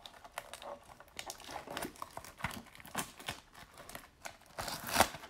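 Gloved fingers peeling the seal off a cardboard trading-card mini-box and handling the boxes: irregular crinkling and crackling with small ticks, loudest in a burst near the end.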